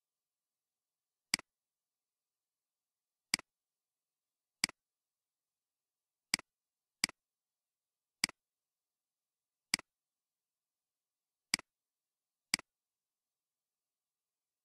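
Computer mouse clicking about nine times at irregular intervals, each a single sharp click, with silence between.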